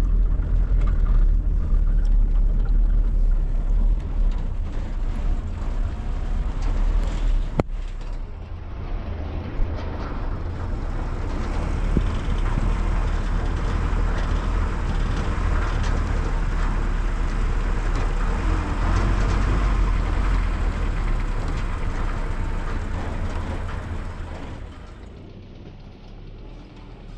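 Steady rumble and road noise of a moving vehicle, with one sharp click about eight seconds in; the noise drops away near the end.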